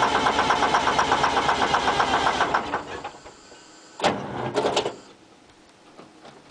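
Ford 9000 semi's diesel engine cranking over on the starter with a rapid, even chugging, not catching, on a cold start; the cranking stops about two and a half seconds in. About four seconds in comes a sharp knock and a short rattle, which fits the cab door being opened.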